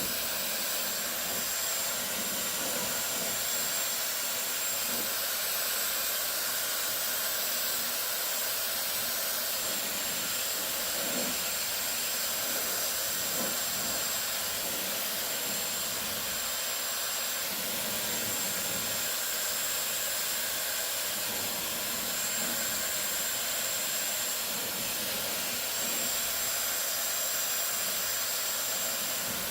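Dyson Supersonic hair dryer blowing steadily on its third setting: an even rush of air with a thin, high whine over it.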